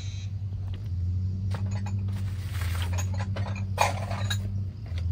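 A vehicle engine running with a steady low hum, with a few short rattling knocks about halfway through.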